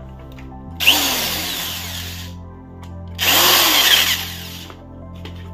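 Cordless drill-driver running in two bursts of about a second and a half each, its speed rising and falling as it drives screws into a 12 V spray pump's housing.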